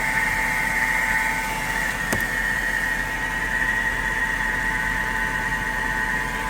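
Mercedes S550's M273 V8 engine idling steadily, with a constant high-pitched whine that the owner suspects comes from the power steering pump not getting enough fluid. A single sharp click sounds about two seconds in.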